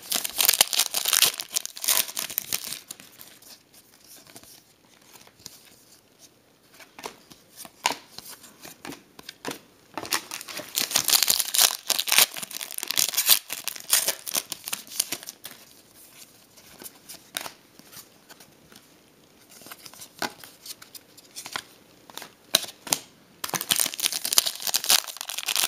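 Foil trading-card pack wrappers being torn open and crinkled in three spells of crackly rustling, with quieter handling between them.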